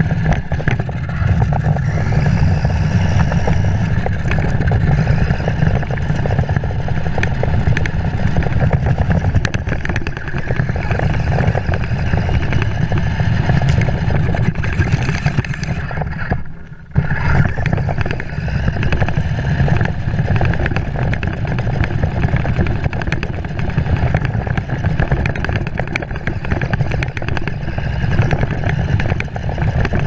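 Remote-control John Deere model tractor running along a rough driveway: its small electric drive motor and gearbox give a steady whine while the wheels and body rattle over the gravel. The sound drops out briefly just past the middle, then carries on.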